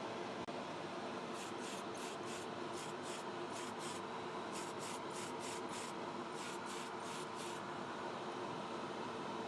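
Clear coat sprayed onto a model car body in quick short bursts, about three a second in three runs, stopping near the end. A spray booth's extraction fan hums steadily underneath.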